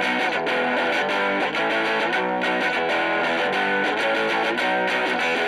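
Background music led by guitar with some distortion, at a steady level.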